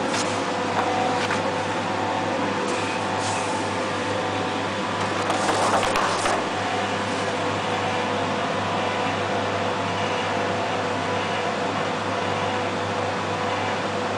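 Steady electric machine hum, with brief rustles of large paper sheets being handled, the loudest about six seconds in.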